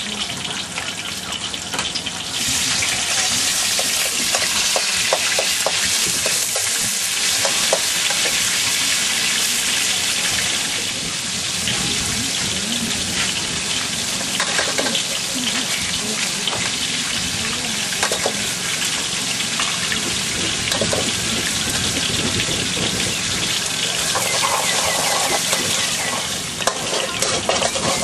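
Fish deep-frying in a wok of hot oil: a steady, loud sizzle that swells sharply about two seconds in and holds.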